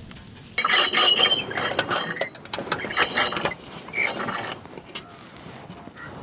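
Coconut being grated: rapid rasping scrapes in three spells, starting about half a second in, the first the longest and loudest.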